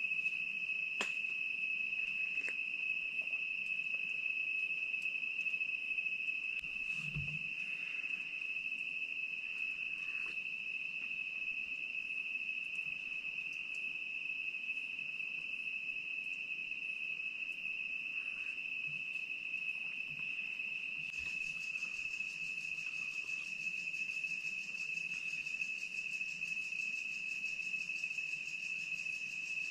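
Crickets calling in one steady, unbroken high-pitched trill, with a few faint knocks.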